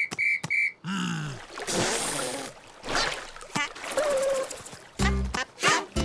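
Cartoon sound effects: a few short, evenly spaced beeps, squeaky gliding effects and a splash of water, then a bouncy music cue with a bass line starts about five seconds in.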